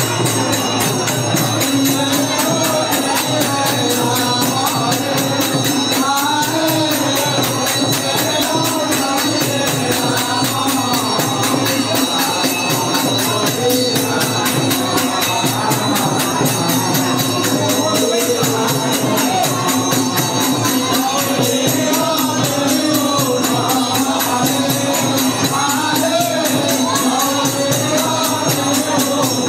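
Devotional singing: voices carrying a melody over percussion that keeps a steady, fast beat.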